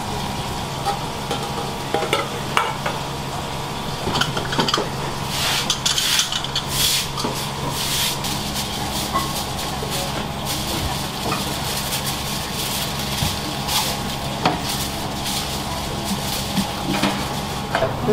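Food sizzling in frying pans over high heat, the sizzle swelling in bursts about five to seven seconds in, with metal utensils clinking and knocking against the pans. A steady hum runs underneath.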